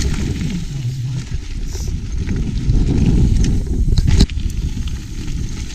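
Mountain bike rolling fast over rough trail, with the rattle of the bike and a steady low rumble of wind buffeting the microphone, and a sharp knock about four seconds in.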